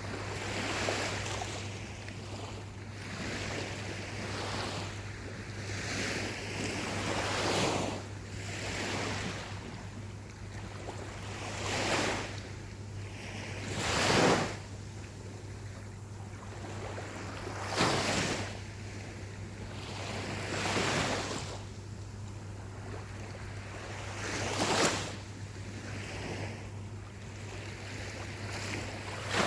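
Small ocean waves breaking and washing up the shore. Each surge swells and fades every few seconds, and a few sharper breaks stand out, the loudest about halfway through.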